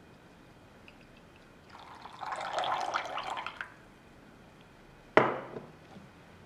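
Brewed espresso splashing from a moka pot's spout into a bowl of coffee for about two seconds as the pour finishes. About five seconds in, one sharp knock as the metal moka pot is set down on the countertop.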